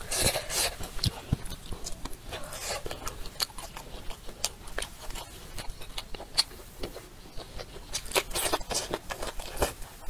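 Close-miked eating sounds: a person chewing food taken from the bowl with chopsticks, with many short mouth clicks and smacks.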